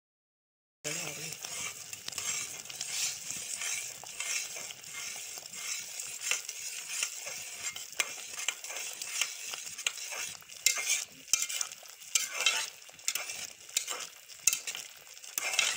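Egg halwa mixture sizzling in a metal pot as a spoon stirs and scrapes through it, with frequent clicks of the spoon against the pot. It starts about a second in.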